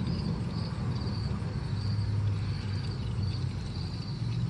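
Outdoor background: a steady low hum with insects chirping high and thin in a regular pulse, about two to three chirps a second.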